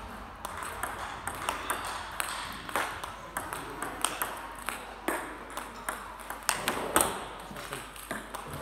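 Table tennis balls in a multiball backhand drill: sharp clicks of celluloid-type plastic balls struck by rubber-faced paddles and bouncing on the table, about two to three a second in an uneven but continuous rhythm, with a short echo after each click from a large hall.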